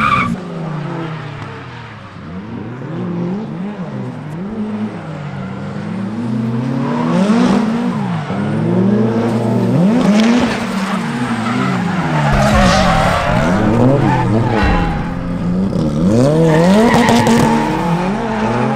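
Drift cars at full throttle, engines revving up and falling back again and again, about once a second, with tyres squealing as they slide.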